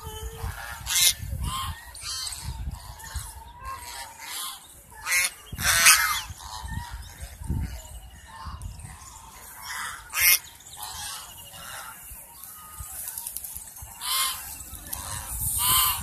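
A flock of white domestic geese honking, with short harsh calls coming again and again, often overlapping.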